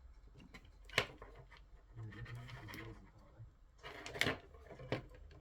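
Hands handling small hard parts of the speaker and its replacement drivers. There is a sharp click about a second in, a cluster of clicks and rubbing near four seconds, and another click shortly after.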